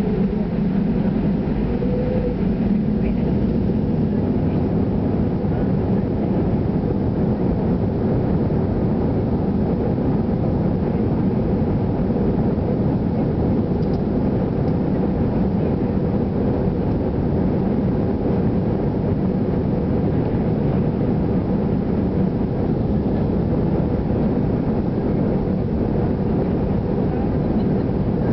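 Steady rumble of an Airbus A318's jet engines and rolling noise, heard inside the passenger cabin as the airliner moves along the runway.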